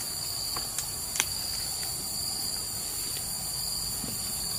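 Steady, unbroken high-pitched insect chorus holding one even pitch, with fainter higher bands above it. A light click sounds about a second in.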